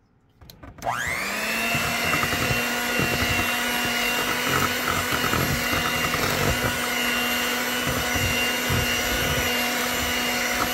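Electric hand mixer switched on about a second in, its motor whining up to speed and then running steadily as the beaters churn pumpkin batter.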